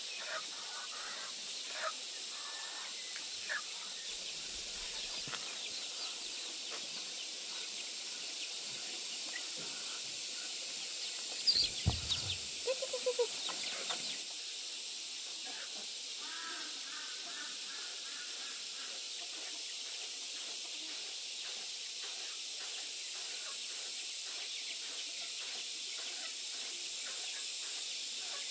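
Chickens clucking now and then over a steady high hiss, with a louder cluster of calls about twelve seconds in and a short run of quick repeated notes a few seconds later.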